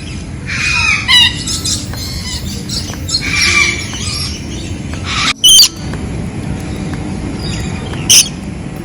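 Birds calling again and again in drawn-out cries, with three short, very loud shrill cries about a second in, about five and a half seconds in and near the end, over a steady background din.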